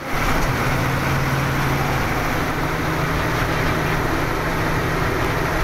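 Heavy road vehicle's engine running steadily while under way, heard from inside the driver's cab: a constant low drone over road noise, a little stronger in the first two seconds.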